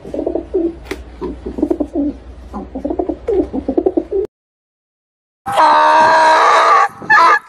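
Domestic pigeons cooing, a run of low repeated coos. After a brief silence at a cut, a donkey brays loudly, a long drawn-out call that breaks off and starts again near the end.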